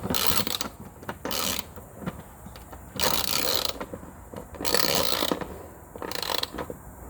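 Hand ratchet wrench tightening a skid plate bolt: about five bursts of rapid ratchet clicking, each lasting under a second.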